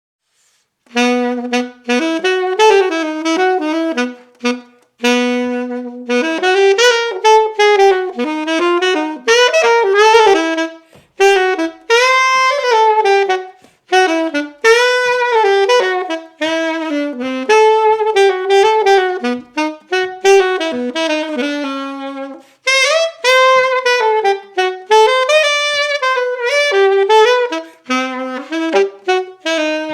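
Yamaha alto saxophone played solo in a jazz style: a single melodic line of quick phrases with short breaths between them, starting about a second in.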